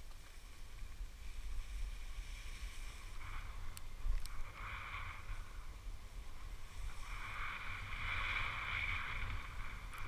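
Snow hissing and scraping under sliding edges on a downhill run, in two bouts, one around the middle and a longer one near the end. A low wind rumble on the microphone runs beneath, and two small clicks come just before the middle.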